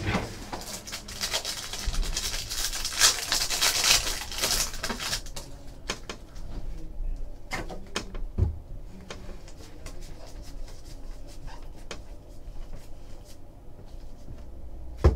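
Foil trading-card pack wrapper crinkling and rustling in the hands for the first five seconds or so. Then football cards are slid and shuffled through by hand, with scattered light clicks and taps.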